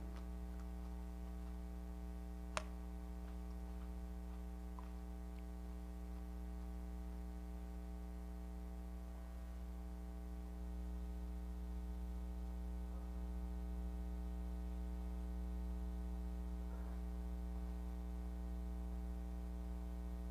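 Steady electrical mains hum with a single sharp click about two and a half seconds in.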